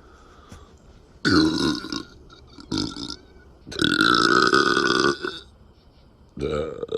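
Repeated burps from a person who is chugging carbonated malt liquor. There is a short burp about a second in, a brief one just before three seconds, then a long drawn-out burp of about a second and a half, and another begins near the end.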